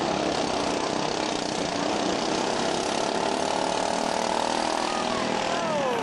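Racing riding lawnmower engines running steadily, with the pitch of one dropping steeply shortly before the end as it slows or passes by.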